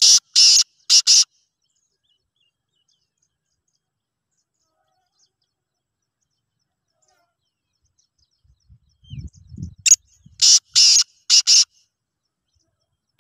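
Caged male black francolin calling: a loud run of harsh, grating notes at the start, then silence, then another run of four or five notes about ten seconds in. A few low thumps come just before the second run.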